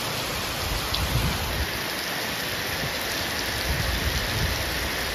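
Steady rain falling, an even hiss, with a few low rumbles about a second in and again near four seconds.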